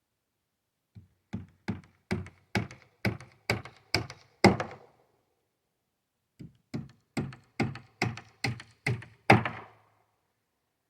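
Hammer driving nails into wooden framing: two runs of about nine blows each, a little over two a second, each run growing louder and ending on its hardest blow as the nail is set home.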